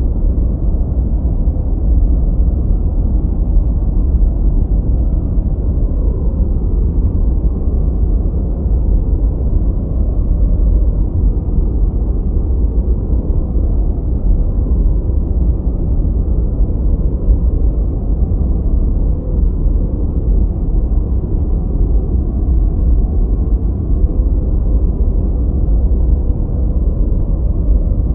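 Steady, unchanging noise track of the kind sold as 'white noise' for studying, weighted heavily to the low end so it sounds like a deep, even rumble with little hiss.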